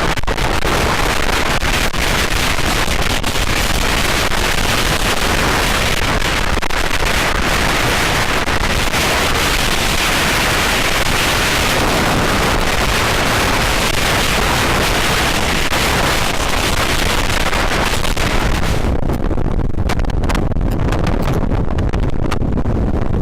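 Strong wind buffeting the camera's microphone: a loud, steady rumble and rush of wind noise. About nineteen seconds in, the high hiss drops away and a low rumble is left.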